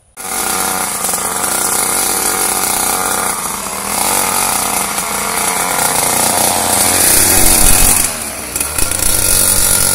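Mini dirt bike's small two-stroke engine running under a child rider, starting abruptly and holding steady, growing louder about seven seconds in, then easing briefly near eight seconds before picking up again.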